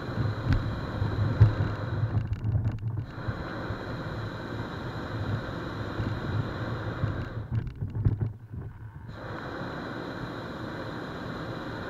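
Wind buffeting the microphone: an uneven low rumble that rises and falls in gusts, with the higher sounds briefly muffled twice.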